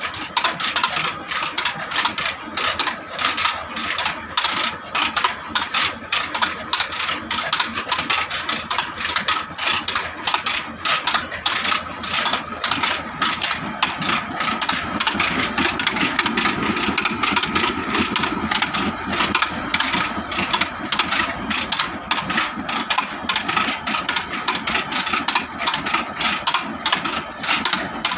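Desi atta chakki, a stone flour mill driven by an old diesel engine, running steadily with a rapid, even clatter.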